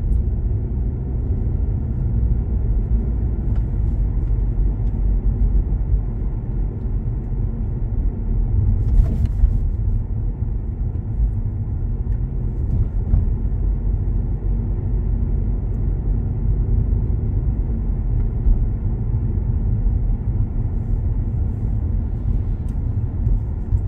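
Steady low rumble of a car being driven, heard from inside the cabin: tyre and engine noise, with a brief knock about nine seconds in.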